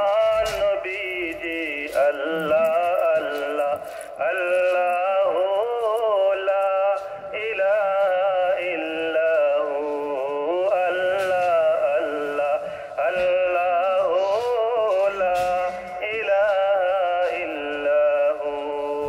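Background music with a sung melody, the voice wavering and gliding between held notes.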